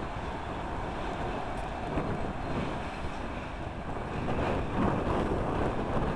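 Freight train's tank container wagons running on the rails as they pass and draw away, a steady rumbling noise mixed with wind buffeting the microphone.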